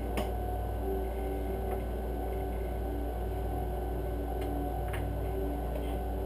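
Background music playing over a steady low electrical hum, with a few faint clicks, the sharpest just after the start.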